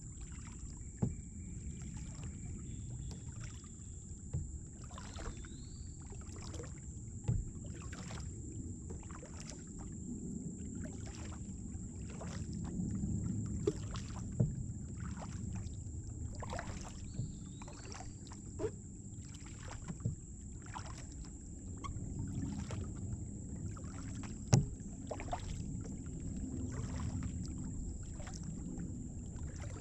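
Kayak paddling: the double-bladed paddle dips and splashes about once a second, with water sloshing at the hull and now and then a sharp knock of the paddle against the plastic kayak.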